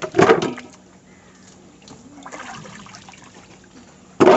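Water splashing and dripping as chunks of raw beef leg are lifted out of a bucket of wash water and dropped into a steel bowl: two loud splashes, one just after the start and one near the end, with fainter dripping between; the second splash has a short metallic ring from the bowl.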